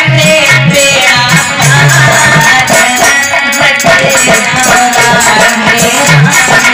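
Bhajan music with a steady beat: drums keep a repeating low pulse under a melody line, with a shaker-like rattle on top.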